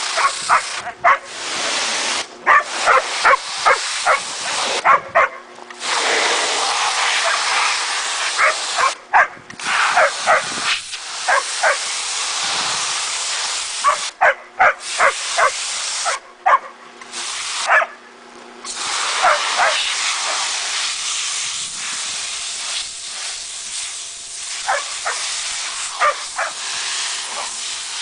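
Pressure washer spraying with a steady hiss, cut off briefly several times as the trigger is let go, while a dog barks repeatedly in short runs of barks over it.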